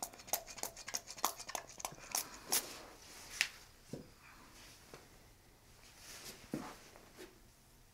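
Spray bottle squirted in quick repeated spritzes, about a dozen at roughly four a second, then a few scattered soft knocks and handling sounds.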